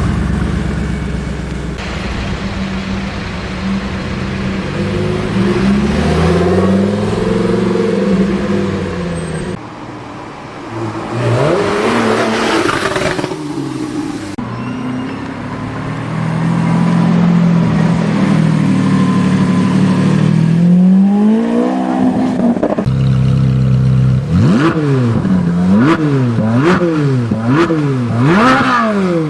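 Supercar engines revving and accelerating, their pitch climbing steeply several times, ending in a run of quick rev blips about one a second.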